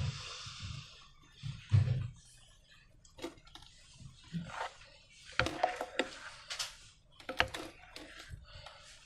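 Slime and balloons being handled: scattered soft taps and crackles, with a low thump about two seconds in and a busier crackling stretch near the middle.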